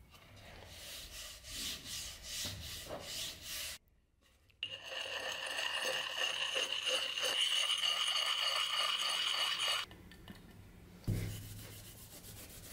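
Round sharpening stone scraped along a steel axe edge in quick strokes, a steady high tone running through the scraping. Before it, hands rub finish into the wooden handle with softer strokes; near the end comes a single knock and more rubbing.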